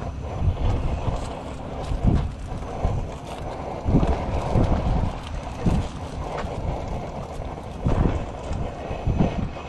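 Strong wind buffeting the microphone, a dense low rumble that surges in irregular gusts every second or two.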